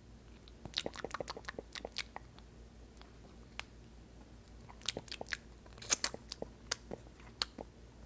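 Faint wet mouth clicks and smacks of someone licking and sucking tamarind candy paste off a plastic spoon. The clicks come in two quick clusters, one about a second in and another from about five seconds in.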